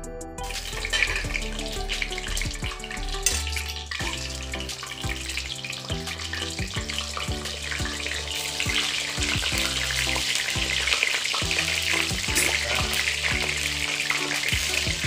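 Eggplant slices sizzling as they fry in hot oil in a wok, the sizzle growing louder about halfway through as more slices go in.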